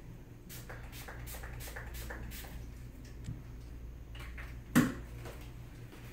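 Small clicks and rustles of supplies being handled on a wooden cabinet top, then a single sharp knock about five seconds in as a cabinet drawer is shut, over a low steady hum.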